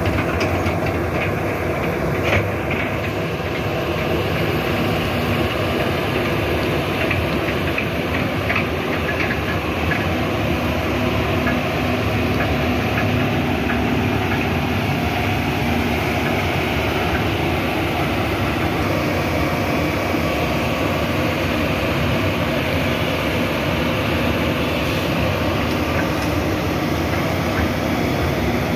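Hitachi crawler excavator's diesel engine running steadily under work, with a few short clanks from the machine between about two and nine seconds in.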